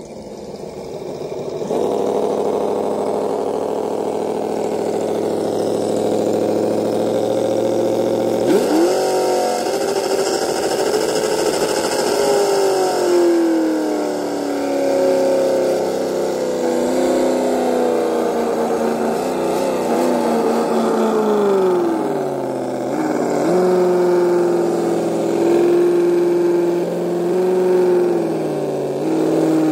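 Engine running and revving: its pitch jumps up about eight seconds in, sinks slowly over the next several seconds, then rises again and holds steady near the end.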